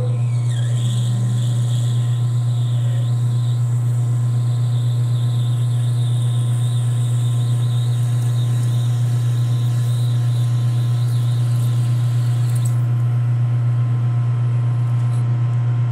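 Metal lathe running with a steady low hum while a twist drill in the tailstock chuck is fed into spinning Delrin stock. A thin, high cutting squeal rides over the hum and stops about three-quarters of the way through.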